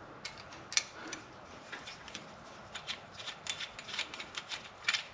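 A/C hoses and their metal fittings being handled and moved into place: irregular light clicks and taps over a soft rubbing, with a sharper click about a second in and a cluster near the end.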